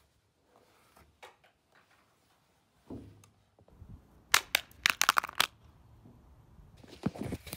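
An iPhone 5 thrown from an upstairs window hitting a concrete driveway: a dull thump about three seconds in, then a burst of sharp cracks and clattering knocks lasting about a second as it strikes and bounces on the concrete.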